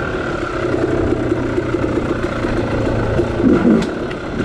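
Yamaha YZ250 two-stroke dirt bike engine running steadily under light throttle on a trail ride.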